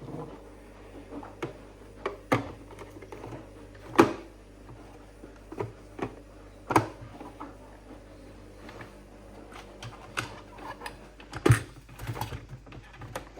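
Irregular sharp clicks and knocks of small hard objects being handled, scattered and without a steady rhythm, the loudest about four seconds in and about eleven and a half seconds in.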